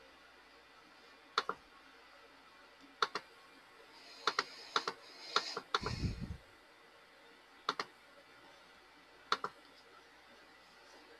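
Scattered sharp clicks at a computer, several coming in quick pairs, with a brief hissy rustle and a low thump about six seconds in.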